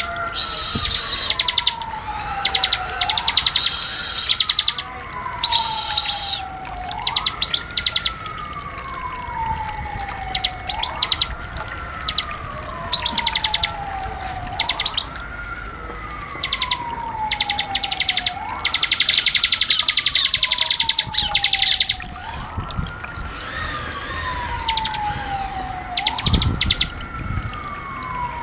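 Ciblek (prinia) song: loud, buzzy rattling trills in short bursts, several in the first few seconds and a longer one past the middle. Under them a falling whistle repeats evenly about every two and a half seconds.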